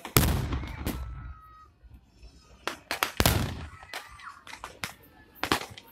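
Two large pyrotechnic blasts simulating artillery fire, one just after the start and another about three seconds in, each followed by a rumble that dies away over about a second. Sharper single cracks come in between and near the end.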